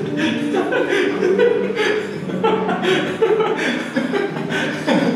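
A man and a woman laughing and chuckling together.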